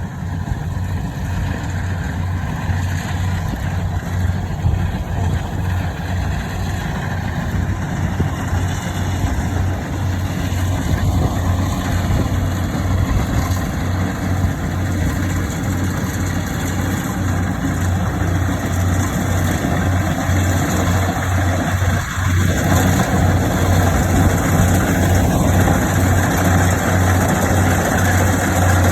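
Rice harvesting machine (combine harvester) running steadily: a continuous low engine drone under a broad, even mechanical noise.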